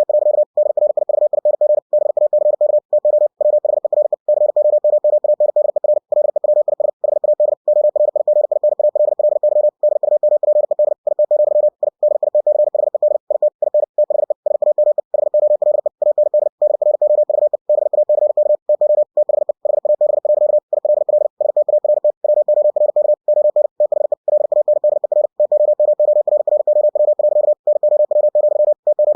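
Computer-generated Morse code (CW) sent at 60 words per minute: a single mid-pitched steady tone keyed on and off very rapidly, with short breaks between words.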